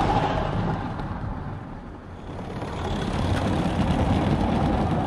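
Rumble of garden railway wagons rolling on metal track close by. It dips about two seconds in, then builds up again.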